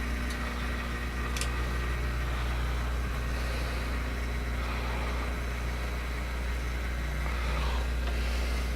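Desktop computer hard drive grinding on itself without letup inside the running PC, a sound the repairer takes for a failing drive. It sounds hellacious, over the steady hum of the computer's fans and power supply.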